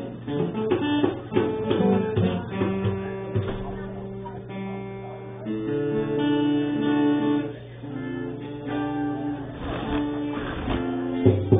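Live acoustic guitar music: strummed chords ringing and changing every second or so, with a clear chord change about halfway through.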